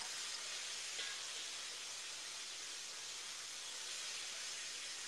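Seasoned chicken pieces sizzling in a hot pan as they brown, a steady hiss.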